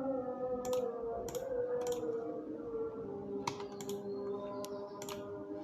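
Quiet background music with long held notes, with about eight sharp, short clicks scattered through it like keys being typed.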